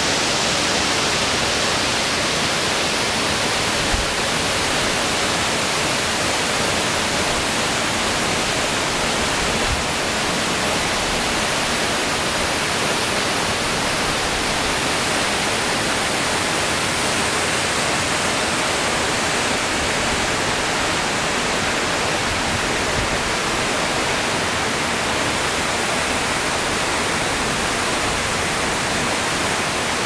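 Steady rushing of a waterfall, its water pouring down between icicle-hung cliffs in a partly frozen icefall.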